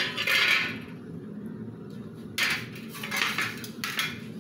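Green peas tipped into a ceramic bowl of beaten egg and grated carrot, clattering in two bursts about two seconds apart.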